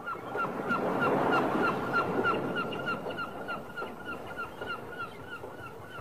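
Gulls calling in a rapid string of short, hooked cries, about three a second, over the wash of breaking surf, which is louder in the first couple of seconds.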